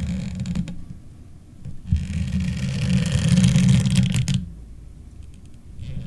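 Sound effect of a steel ship's hull scraping along an iceberg: a deep grinding rumble that eases off about a second in, then swells again with a harsh metallic scraping and grating about two seconds in, the loudest part, before dropping back near the end and surging once more right at the close.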